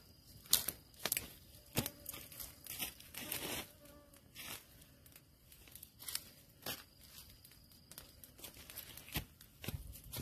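Irregular scraping, crunching and tearing sounds of digging by hand into soil and debris, with scattered sharp clicks, a longer scrape a little past three seconds in and a low thud near the end.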